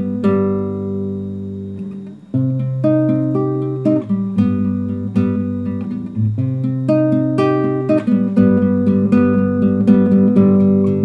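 Classical guitar played solo without singing. A chord rings out and fades for about two seconds, then the player picks a steady run of notes and chords.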